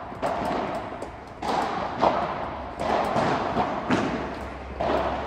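A padel rally: about six sharp knocks of rackets striking the ball and the ball bouncing, roughly a second apart, each echoing in a large indoor hall.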